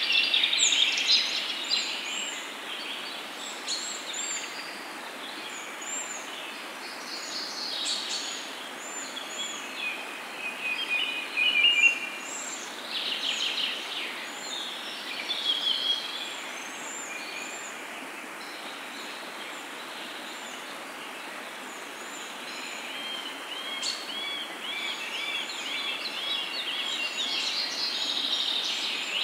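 Peyaju, lentil and onion fritters, deep-frying in hot oil: a steady sizzle and bubbling with many short, high chirps over it. There are louder spells as a spatula turns the fritters, the loudest about twelve seconds in.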